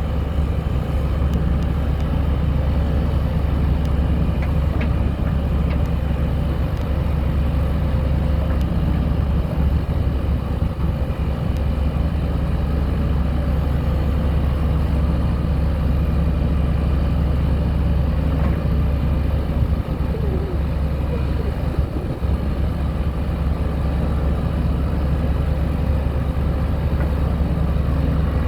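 Diesel engine of a 2002 Terex 760 4x4 loader backhoe idling steadily, a deep even hum.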